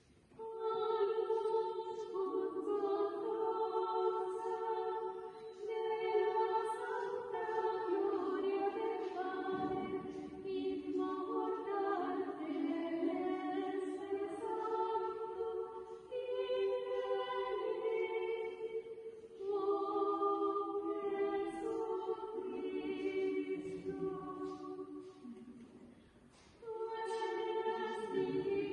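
A choir singing unaccompanied in slow, long-held phrases, with short breaks between phrases.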